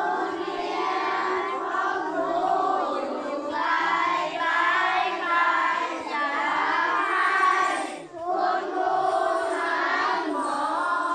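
A group of children singing a song together in unison, with a short break about eight seconds in.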